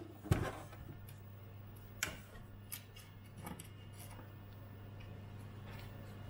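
Plastic case of a Commodore 128D being handled and set down on a wooden desk: a sharp knock just after the start, a second click about two seconds in and a few fainter clicks, over a steady low hum.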